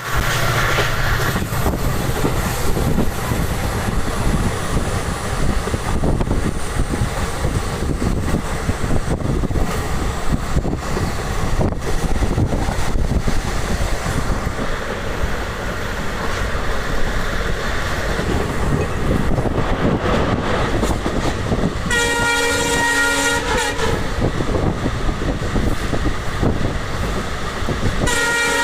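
Indian Railways train running at speed, a steady loud rumble and rattle of wheels on rails. Its locomotive horn sounds a long blast about 22 seconds in, and another starts just before the end.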